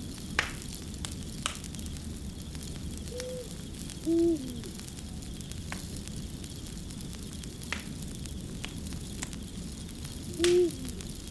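Wood fire crackling, with irregular sharp pops over a steady low rumble. An owl hoots three times among the crackles, each hoot a short low note dropping at the end: a faint one about three seconds in, then two louder ones, the second near the end.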